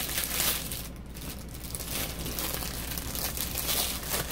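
Clear plastic packaging crinkling and rustling as it is handled, an irregular crackle that comes and goes.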